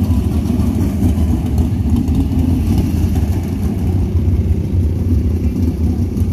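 Steady, loud low rumble of engines in a sprint car pit area: 410 sprint cars and the ATVs that push them running together.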